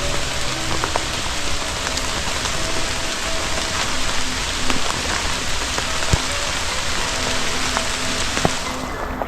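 Steady heavy rain falling, with a dense hiss of rain on surfaces and scattered sharp drop impacts.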